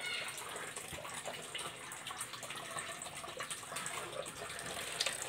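A steady stream of liquid running and splashing.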